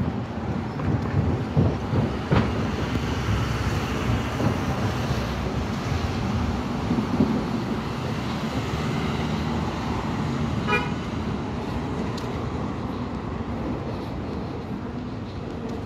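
Steady city traffic noise, with one short horn-like toot about eleven seconds in.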